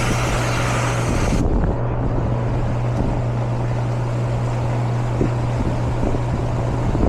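Air-conditioning outdoor condensing unit running: a steady low hum from the compressor under the rush of the condenser fan, with a brighter hiss on top that drops away about one and a half seconds in. The system is running with a low suction pressure of 56 psi, which the technician takes for a restriction leaving the evaporator underfed.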